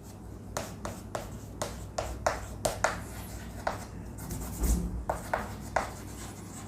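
Pen strokes of writing and drawing on a surface: short scratchy strokes at an irregular pace of about two a second, with a soft low bump a little after halfway.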